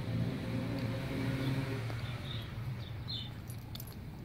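Low play growling from a dog wrestling with another dog, strongest in the first two seconds and then fading.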